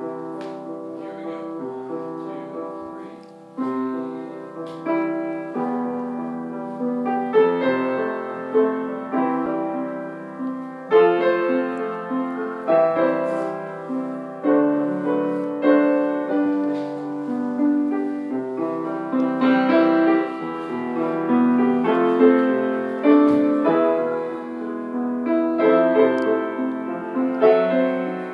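Piano playing a continuous tune of struck notes and chords, each ringing and fading away; softer for the first few seconds, then louder.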